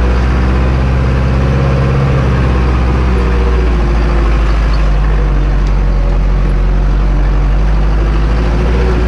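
Zetor 7245 tractor's four-cylinder diesel engine running steadily, with the engine speed shifting slightly a few seconds in.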